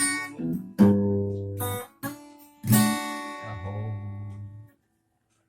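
Acoustic guitar strumming the closing chords of a song, with no voice. The last and loudest chord rings for about two seconds, then stops abruptly.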